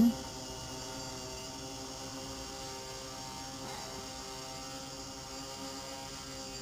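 Multicopter's propellers giving a steady hum with several even tones as it hovers in place, holding its position and height.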